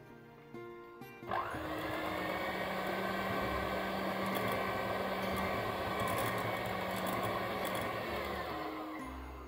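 Moulinex electric hand mixer switched on about a second in, spinning up and running steadily with a motor whine as its beaters whip cocoa into a buttercream, then winding down near the end.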